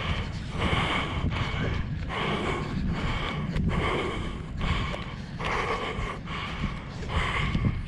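Cape fur seal breathing hard while restrained in a rescue net: short, hissing huffs repeating about once a second. Wind rumbles on the microphone underneath.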